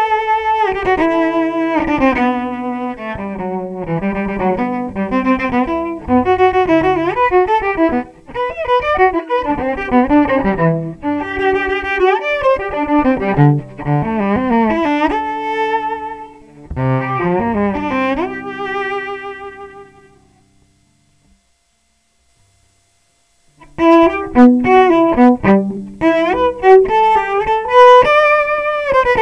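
Solo bowed cello heard through a David Gage Realist bridge pickup, recorded direct into a converter with no microphone. A melodic passage with vibrato plays and stops about two-thirds of the way through. After a few seconds of silence the cello starts again, now with the pickup's installation modified.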